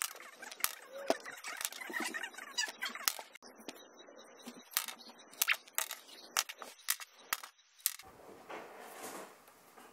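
A pen knocking and clattering against fingers and a hard surface while being practised in spinning: a dozen or more irregular sharp clicks and taps, which die away about eight seconds in.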